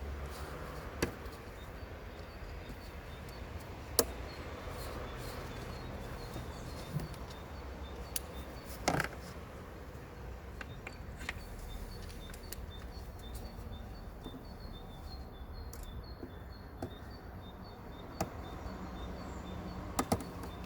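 Mercedes OM651 four-cylinder diesel idling, with a faint, evenly repeating high chirp over the low engine hum and a few short sharp clicks. The chirp at idle is the noise the owner traces to a possible source common to OM651 engines with two-stage turbocharging.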